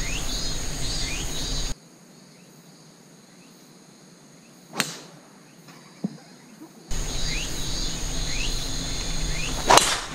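Sharp crack of a driver striking a golf ball near the end, the loudest sound, with a fainter click of a club strike in the middle. The players take the ball to have cracked on the strike. Insects chirp behind, dropping away for a few seconds in the middle.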